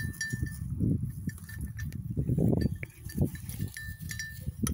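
Goats eating out of a metal cup held to them over a fence: irregular munching and nuzzling noises, with light metallic clinks and ringing as their muzzles knock the cup.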